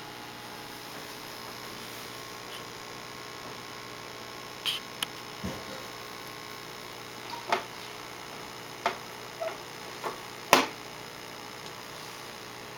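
Steady hum of running aquarium equipment, with a scattered series of about eight short sharp clicks and knocks in the middle of the stretch, the loudest near the end.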